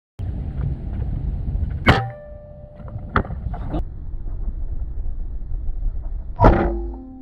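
Two shots from a Hatsan Vectis .25 PCP air rifle, about four and a half seconds apart, each a sharp crack followed by a brief ringing tone. Two lighter clicks fall between them, over a steady low rumble from the boat.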